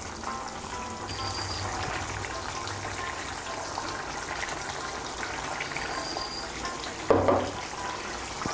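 Curry bubbling and sizzling in a pan as fried fish pieces are laid in with a spatula, over light background music. A brief louder knock comes about seven seconds in.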